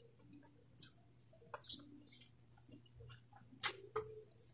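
A person chewing a mouthful of food, with faint scattered wet mouth clicks and one sharper click about three and a half seconds in, over a faint steady low hum.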